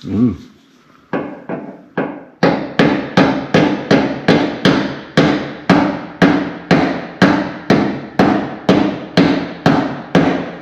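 Hammer driving a door hinge pin into a 1968 Chevelle's door hinge, metal on metal: a few light taps, then a steady run of sharp ringing blows, about two and a half a second.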